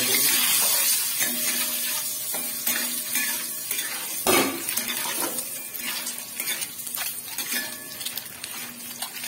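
Peeled boiled eggs frying in a little oil with turmeric and chilli powder in a metal kadai, sizzling with a steady hiss, while a metal spatula scrapes and taps against the pan as they are turned. About four seconds in there is one sharper knock of the spatula on the pan.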